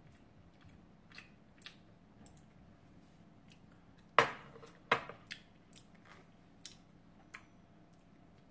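A person eating at the table: quiet chewing and small mouth sounds, light taps of chopsticks, and two sharp knocks of tableware a little past halfway.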